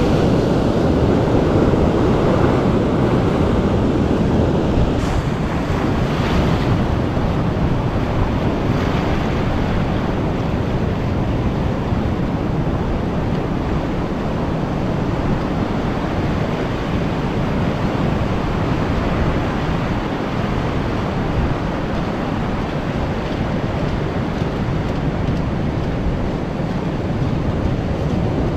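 Ocean surf breaking and washing over rocks and sand in a steady rush, with wind buffeting the microphone.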